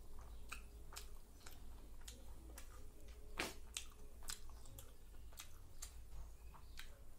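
Close-up chewing of a mouthful of rice and curry: wet mouth clicks and smacks at an irregular pace, with one louder click about three and a half seconds in.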